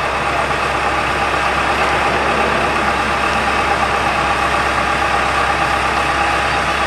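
Tracked excavator's engine running steadily as the machine works its boom and bucket.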